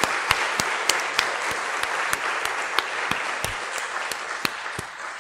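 Audience applauding, many hands clapping together, slowly dying away toward the end.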